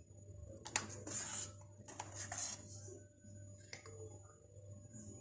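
Milk poured into glasses in two short pours, about one and two seconds in, followed by a light clink a little past the middle.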